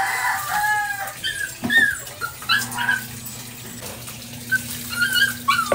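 A dog whining in short, high-pitched whimpers while it is being bathed. A steady low hum starts about two and a half seconds in.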